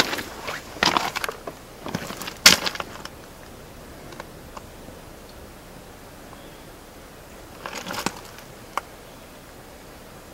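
Crunching footsteps on gravel with camera handling knocks during the first three seconds, then a steady low background with a brief rustle and a single small click near the end.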